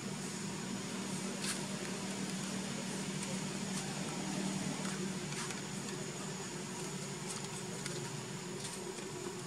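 Steady outdoor background drone: a low hum that eases off about halfway through, under a thin, steady high whine, with a few faint ticks.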